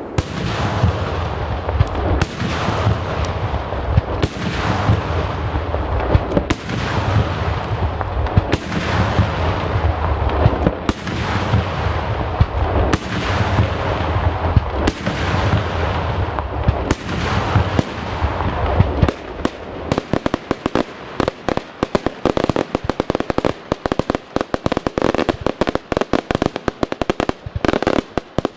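Daytime fireworks: loud shell bursts going off every second or two with a deep rumble, then, about two-thirds of the way through, a rapid, dense crackle of many small firecracker reports.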